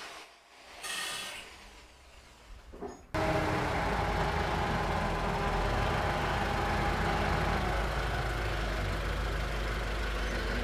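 A car engine running steadily at low speed as the car creeps forward, cutting in suddenly about three seconds in after a stretch of low, quiet sound.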